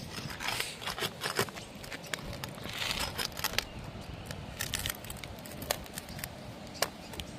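Roof snake tool scraping under brittle asphalt shingles, which crackle and snap in a run of sharp clicks and scrapes as the tool pries at the nails. The brittle shingles tearing under the tool is a sign the roof is not repairable.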